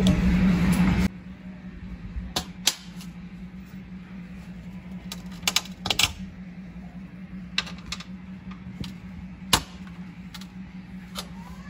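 Tungsten-carbide wheel glass cutter scoring a sheet of glass: a loud scratchy hiss that stops abruptly about a second in. Then comes a scattering of sharp clicks and taps from the glass as the scored sheet is worked, over a steady low hum.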